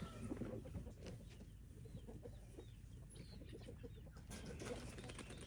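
Chickens clucking softly in short, irregular calls.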